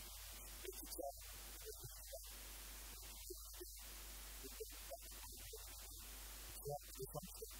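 Quiet room tone: a steady electrical hum under a low hiss, with a few faint, short indistinct sounds scattered through it.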